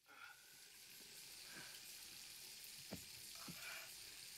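Near silence: a faint steady hiss with a few soft clicks, the loudest about three seconds in.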